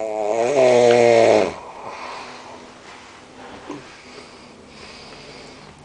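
A man snoring: one loud, harsh, pitched snore lasting about a second and a half, then much quieter breathing sounds for the rest of the time.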